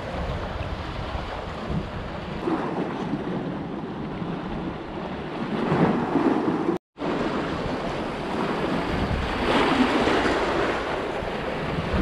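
Sea waves washing against a rocky breakwater, with wind buffeting the microphone; the surf swells louder about halfway through and again near the end, and the sound cuts out for a moment just past the middle.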